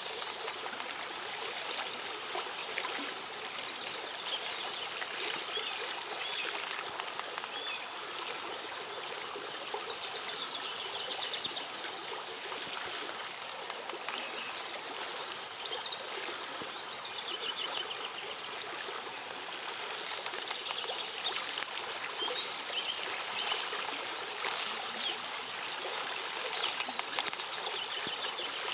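Shallow stream running over stones, a steady trickling rush, with short high chirps scattered through it.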